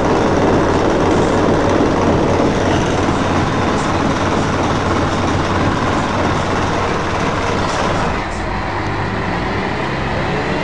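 Scania L113CRL bus's diesel engine and road noise heard from inside the saloon while the bus is moving: a loud, steady rumble and rattle that eases off a little about eight seconds in.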